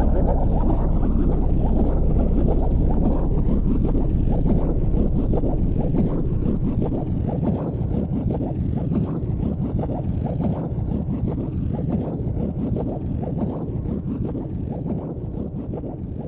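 Wind buffeting the microphone of a camera on a moving motorcycle, a dense rumble that slowly gets quieter.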